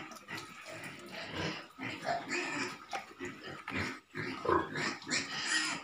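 Domestic fattening pigs grunting in their pen in short, irregular calls.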